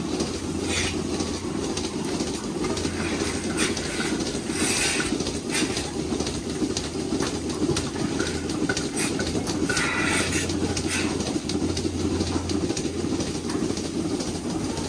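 Milking parlour machinery running: a steady low rumble and hum, with scattered clicks and a couple of short hisses.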